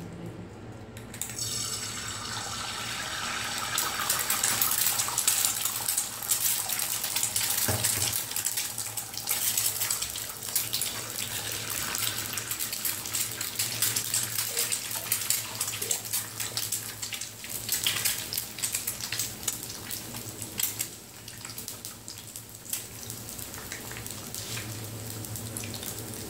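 Egg frying on a hot flat griddle: a steady sizzle full of small crackling spatter pops, starting about a second in as the egg hits the pan.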